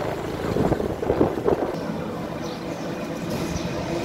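Motorcycle running along a road at speed, engine hum mixed with wind buffeting the microphone.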